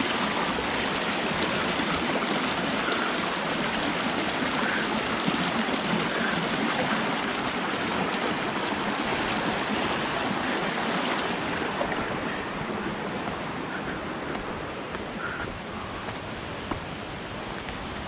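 River water rushing over rocks in shallow rapids, a steady full hiss that grows a little quieter over the last few seconds.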